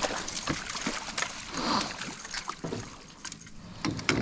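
Water splashing and dripping as a netted tarpon is drawn up in a landing net alongside a small aluminium boat, with a few sharp knocks.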